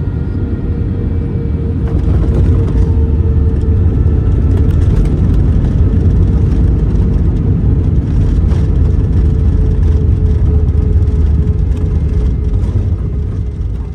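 Airbus A319 jet engines heard from inside the cabin: a heavy low rumble under a steady whine that sinks slightly in pitch. It grows louder about two seconds in and eases off near the end, with a few light rattles.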